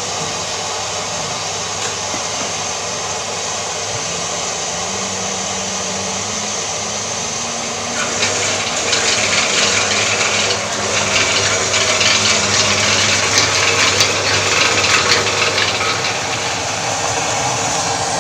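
Homemade plastic pelletizing machine running, its electric motor giving a steady hum. From about eight seconds in, a louder crackling rustle joins it as plastic bags are rammed down into the hopper with a metal rod.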